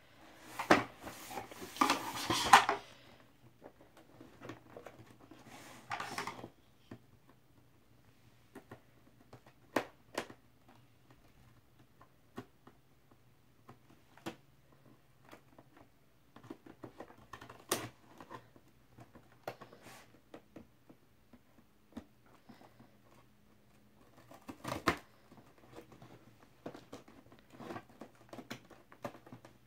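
Scissors clicking and snipping at the plastic ties and packaging of a boxed toy, with rustling of the box and plastic in the first couple of seconds and again around six seconds in, then scattered sharp clicks.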